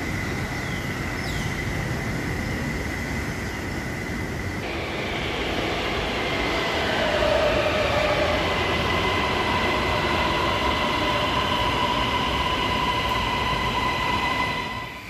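Bangkok MRT Blue Line electric metro train pulling into the platform and slowing down, rumbling louder as it arrives with a motor whine that falls in pitch as it brakes. The sound cuts off just before the end.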